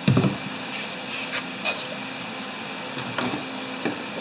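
Workbench handling noise while fuelling a leaf blower: a dull thump right at the start, then a few light clicks and knocks spread through the rest.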